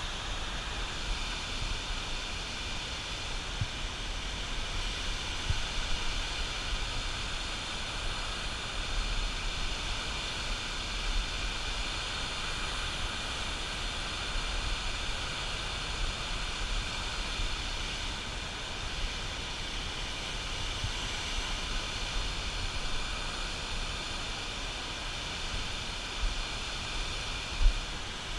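Turbulent white water rushing out below a dam, a steady hiss with a low rumble underneath. A single brief knock comes near the end.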